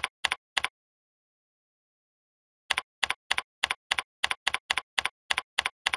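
Computer keyboard typing, in sharp separate keystrokes: about three near the start, a pause of about two seconds, then a steady run of about a dozen keystrokes, roughly three to four a second.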